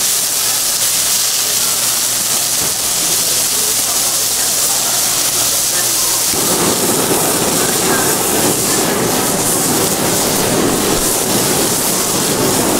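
Beef steak skewers sizzling on a hot flat-top griddle. About six seconds in, a handheld gas torch is lit over the meat and its flame adds a steady, louder rushing sound as it sears the beef.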